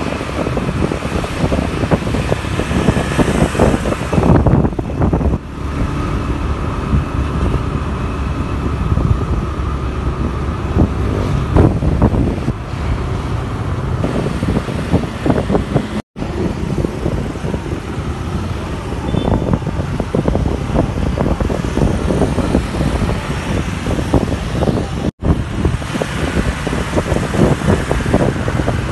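Wind buffeting the microphone over motorcycle engine and road noise from a moving motorcycle. The audio drops out for an instant twice, a little past halfway and near the end.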